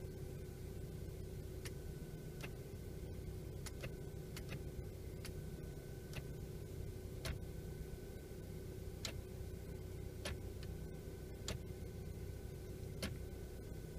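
Suzuki Reno's four-cylinder engine idling with a steady low hum, over which a light, regular ticking repeats about once a second.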